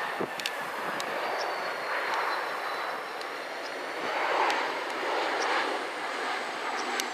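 Boeing 717 on approach with its gear down, its rear-mounted Rolls-Royce BR715 turbofans giving a steady jet rush that swells to its loudest about halfway through, over a faint high engine whine.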